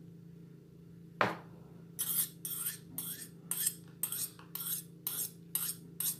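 Metal spoon scraping and tapping against a clear plastic makeup case while melted lipstick is emptied out of it: one sharp knock about a second in, then a run of short scrapes and clinks about two a second.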